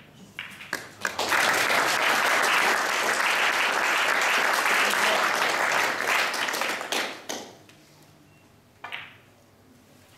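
Snooker balls clicking as a shot is played, then the audience applauding for about six seconds before the clapping dies away. One more short click comes near the end.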